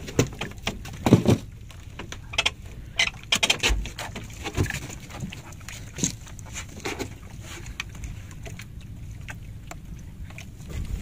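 Irregular knocks and clatter aboard a small fishing boat over a steady low rumble of wind and water, as a longline is hauled in by hand.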